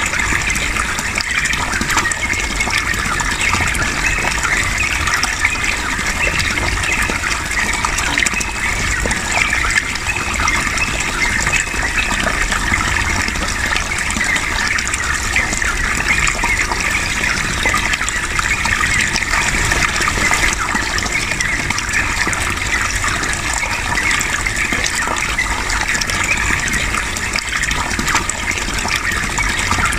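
Running water flowing steadily in a continuous gush, with no pauses.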